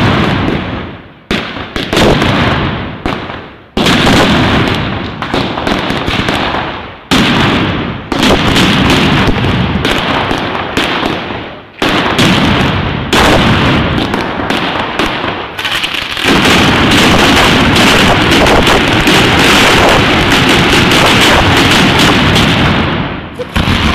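Mascletà firecrackers (masclets) going off in rapid, very loud volleys of bangs. Several surges each die away over a second or two, then from about two-thirds of the way in the bangs merge into one continuous barrage.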